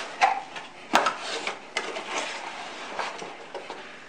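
Cardboard packaging being handled: box parts lifted out and set down, with one sharp knock about a second in and scattered lighter clicks and scrapes.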